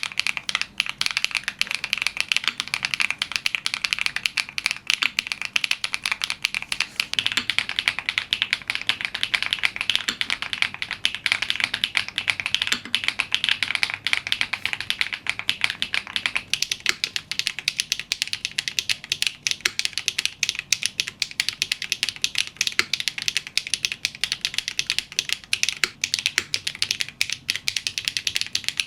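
LUMINKEY80 MK II mechanical keyboard being typed on fast: a continuous, rapid clatter of keystrokes. About sixteen seconds in, the clatter turns thinner and brighter, with less low body.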